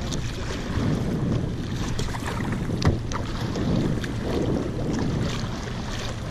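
Wind buffeting the microphone in a steady low rumble, with the swish and splash of a kayak paddle dipping into the water on alternate sides. A sharp knock stands out about three seconds in.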